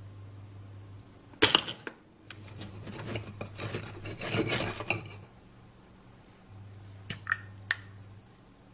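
A sharp clack about one and a half seconds in, then a table knife cutting slices of toast on a plate, crunching and scraping for about three seconds. Near the end come three light clinks of small glass jars.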